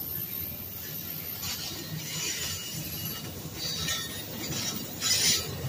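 Amtrak California bi-level passenger cars rolling slowly past on the rails: a steady low rumble of the wheels on the track, broken by short high-pitched screeching bursts from the wheels, the loudest near the end.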